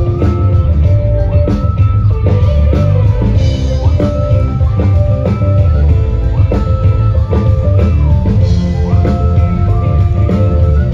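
Live band music played loud through a PA sound system: drum kit and heavy bass under guitar and a melodic line that slides between notes.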